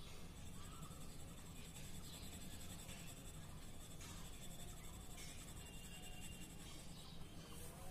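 Colour pencil scratching faintly on paper as a picture is coloured in, in short back-and-forth strokes.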